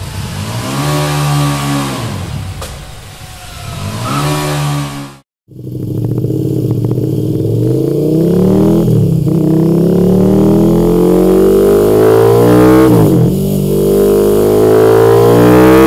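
KTM 1290 Super Duke's V-twin engine revved while standing. It plays first through the stock silencer, then after a brief gap through a Mivv X-M5 titanium slip-on silencer. Through the slip-on the revs climb for about four seconds at a time, dropping back between climbs.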